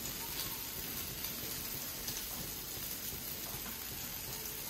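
Dosa and ghee sizzling steadily in a hot pan, with a few faint light ticks.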